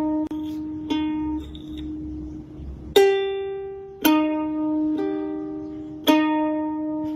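Background music: a slow plucked-string melody, single notes struck about once a second and each left ringing until the next.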